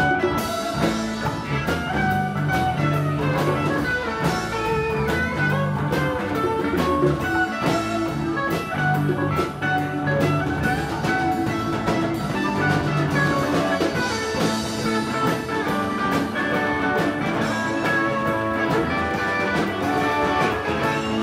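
Live band playing an instrumental passage, with guitar lines over a steady drum kit beat.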